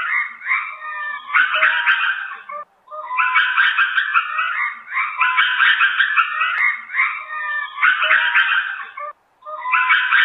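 Lemurs calling: many overlapping high calls in a dense, continuous chorus, breaking off briefly about two and a half seconds in and again near nine seconds.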